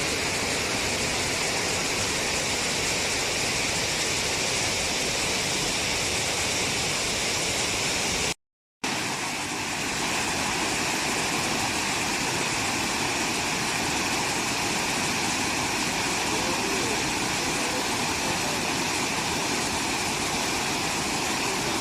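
Waterfall: a steady rush of falling, splashing water, broken by a split-second gap of silence about eight seconds in.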